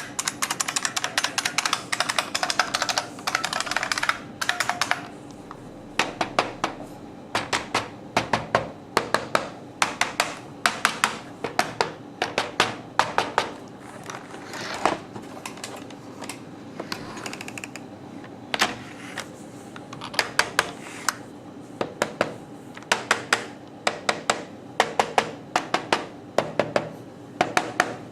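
Typing on an IBM Model M industrial keyboard from 1999, its buckling-spring keys clacking. A fast, unbroken run of keystrokes for about the first four seconds gives way to shorter bursts of keystrokes with brief pauses between them.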